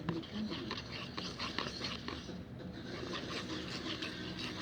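Slime being stirred in a bowl: an irregular run of quick, wet clicks and squelches.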